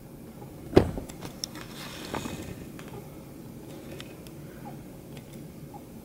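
A sharp click about a second in, then a few faint clicks and light handling noise of small hard parts being moved.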